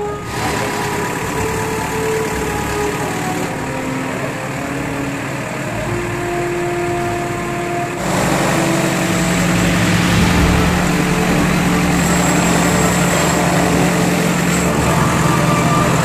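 Diesel engine of a JCB backhoe loader running steadily. It gets louder and closer about halfway through.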